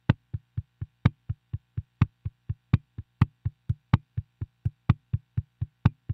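Song intro of steady, sharp clicks, about four a second, some louder than others at roughly every fourth click, like a metronome count-in, over a faint low hum.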